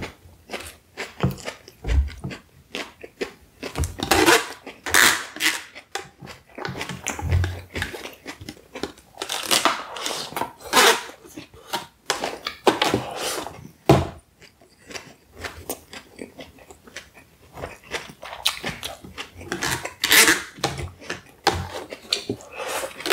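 Eating sounds: chewing a mouthful of shawarma platter while a white plastic fork scrapes and clicks irregularly against a black plastic takeout tray, shovelling up the last of the food.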